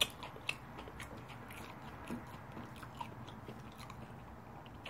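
A person chewing crunchy food close to the microphone: a run of small, irregular mouth clicks and soft crunches, the sharpest right at the start and about half a second in.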